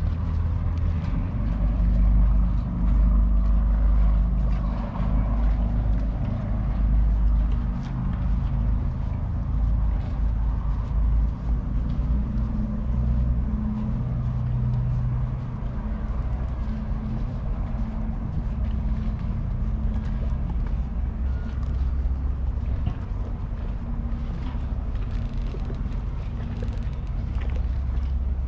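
Low, steady rumble of an engine running, with a faint hum in it.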